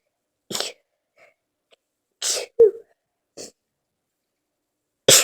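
A person in a sneezing fit, sneezing again and again in short sharp bursts, about one a second. The loudest sneezes come a little after the middle and at the very end.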